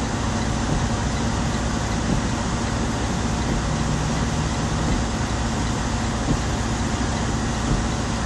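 Steady idle of a truck engine heard from inside the cab, a constant low hum under an even hiss.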